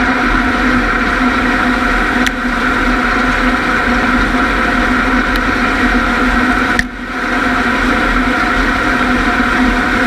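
Combine harvester running steadily while harvesting corn, a constant machine drone with a brief dip about seven seconds in.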